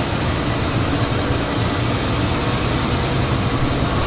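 Combine harvester's diesel engine running steadily, with a thin high-pitched whine held over the low engine drone.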